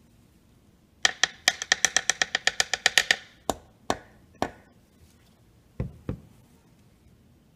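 Plastic reagent bottle of magnesium oxide powder being tapped rapidly, about eight sharp taps a second for two seconds, to shake powder out onto a balance pan. A few single taps follow, then two duller knocks near the end.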